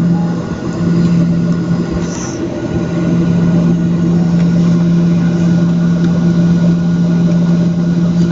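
Cabin noise of a Boeing 737-700 taxiing: the steady hum of its CFM56 engines at idle, with a strong low drone over a constant rush of air and rolling noise.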